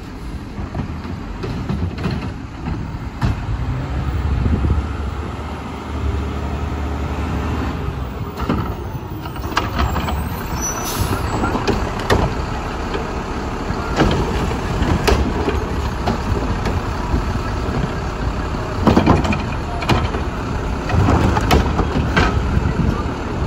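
A Mack LEU garbage truck's diesel engine running and revving under load, with repeated metal clanks and bangs as the Curotto-Can arm lifts and dumps carts. A hiss of air about eleven seconds in.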